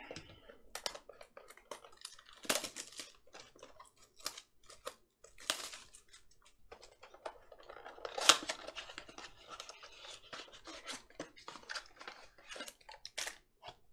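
Plastic shrink wrap being torn off a cardboard trading-card blaster box and the box opened by hand: a run of irregular crinkles, crackles and scrapes, loudest about eight seconds in.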